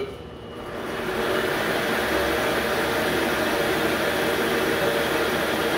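A CD-210V 8x16 mini metal lathe running on its stock 750-watt brushed motor, with the chuck spinning. It speeds up from about 250 rpm to near its top speed of about 1,160 rpm over roughly the first second and a half, then runs steadily.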